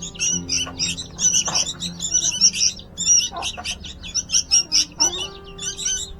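Nestlings chirping in rapid, dense, high peeps, the begging calls of baby birds at feeding time.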